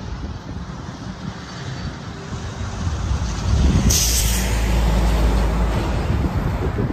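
A heavy flatbed truck driving past at close range, its engine rumble building and staying loud through the second half, with a short hiss of air brakes about four seconds in.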